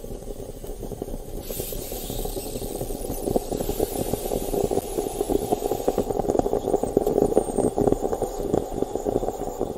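Film projector clatter sound effect for an intro: a fast, dense mechanical rattle that grows louder toward the end, with a hiss laid over it from about a second and a half in until about six seconds in.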